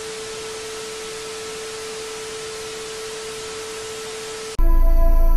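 Television static sound effect: a steady hiss with a single steady tone beneath it. It cuts off about four and a half seconds in, as ambient music with held tones begins.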